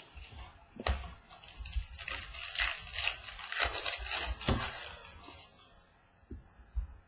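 Baseball trading cards and a pack wrapper being handled: crinkling and rustling as a pack is opened and its cards shuffled. The rustling dies down about five seconds in, leaving a couple of faint card clicks.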